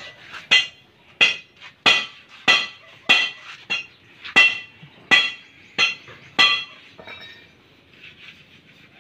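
Ringing metallic clinks struck at an even pace, about three every two seconds, ten in a row, stopping about six and a half seconds in.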